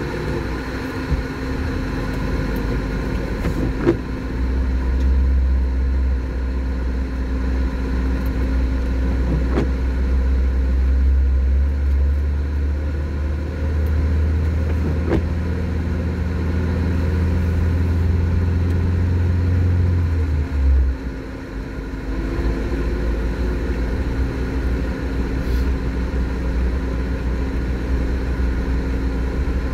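Lada Niva engine running as the car drives over snow, heard from inside the cabin: a steady low drone that deepens from about four seconds in and eases off about twenty-one seconds in, with a few light knocks.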